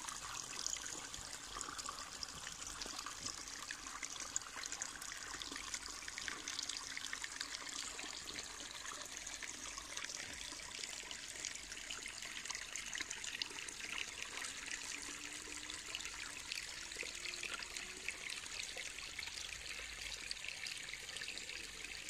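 Faint, steady trickle of shallow water running through a muddy field channel.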